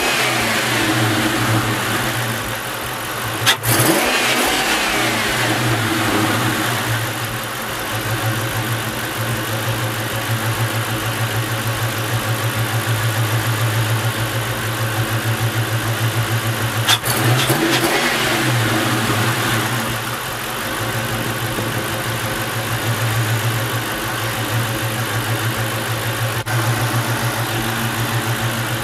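2000 Mustang GT's 4.6-litre V8 running steadily at idle with a freshly fitted BBK 78 mm throttle body. About four seconds in, and again at about seventeen seconds, there is a sharp click and the engine speed briefly changes.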